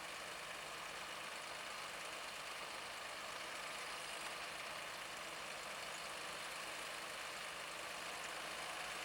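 John Deere 7830 tractor running steadily as it pulls a Grimme SE 170-60 twin-row potato harvester, a constant engine and machinery drone with no changes.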